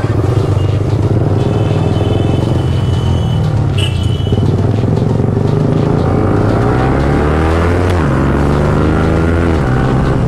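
Yamaha R15M's single-cylinder engine and wind noise while riding, the engine pitch climbing and then dropping away in the last few seconds.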